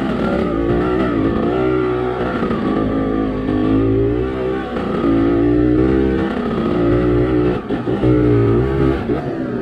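Kawasaki KMX 125 single-cylinder two-stroke dirt-bike engine under way on a trail, revving up and easing off several times so that its pitch rises and falls. It runs cleanly on a substitute Yamaha RS100 CDI, which the rider judges to be working fine.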